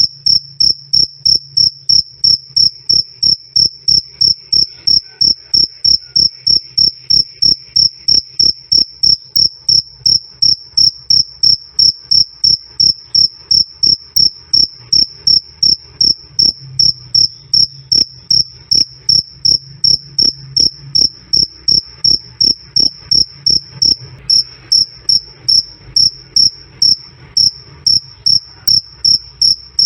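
A male cricket chirping loudly and steadily: a high-pitched "krik" repeated in short, evenly spaced chirps, a few each second, with a faint low hum underneath.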